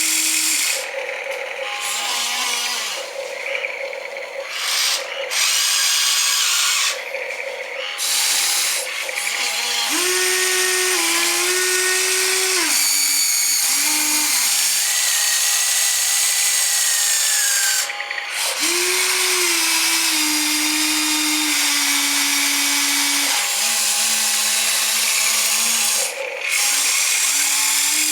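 Small geared electric motors of a model excavator whining in steady tones. The pitch steps up and down and the sound stops and starts as each motion is driven in turn.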